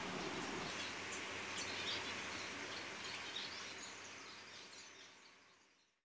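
Faint budgerigar chirps over a steady background hiss, fading out to silence a little before the end.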